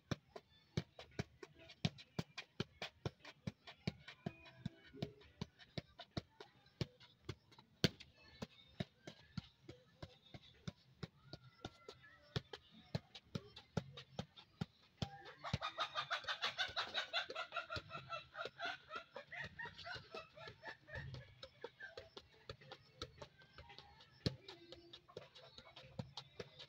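A football being juggled, a quick run of sharp taps of foot on ball about two to three a second. From about halfway through, a chicken calls loudly for several seconds over the taps.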